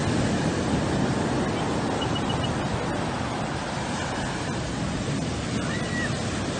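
Ocean surf breaking and washing in around the shore: a steady rush of waves.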